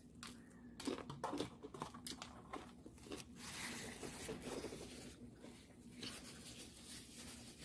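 Crunchy bites and chewing of breaded fried chicken, with a few crisp crunches about a second in, followed by the rustle of a paper napkin.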